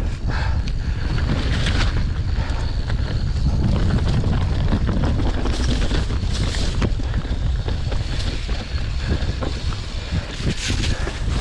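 Wind buffeting the microphone of a mountain bike descending at speed, a steady low rumble, with tyres crunching over dry dirt and brushing through tussock grass and the bike rattling in short scattered clicks.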